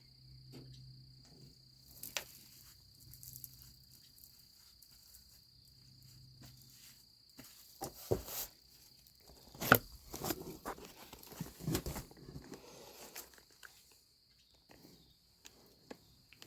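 Scattered clanks, knocks and rustling as semi-trailer brake parts are handled during an S-cam bushing change, a few louder knocks in the second half. A steady high-pitched insect trill goes on underneath.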